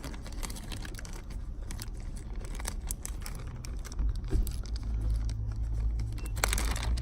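Plastic bag crinkling and rustling with small clicks as dental impression trays are packed into it, with a louder crinkle about six and a half seconds in, over a low steady hum.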